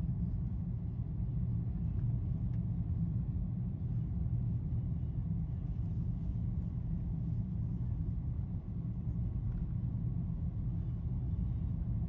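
Steady low rumble of road and engine noise heard from inside a car's cabin while cruising along a highway.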